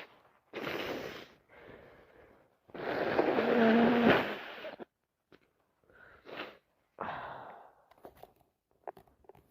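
A woman with a heavy, wet head cold breathing in noisily twice, then a long, loud, wet nasal blast about three seconds in, the loudest sound here. Shorter sniffles and small clicks follow.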